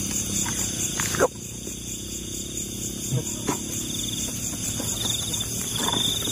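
Night-time insect chorus, crickets trilling steadily at a high pitch, with a sharp knock just over a second in and faint scattered rustles and clicks.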